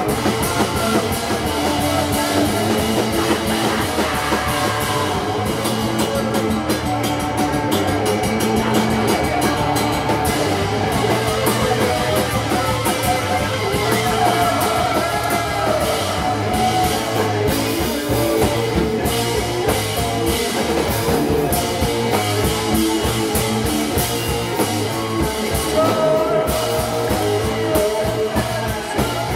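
Live rock band playing loudly, with electric guitar and drums. The drum hits grow denser about five seconds in.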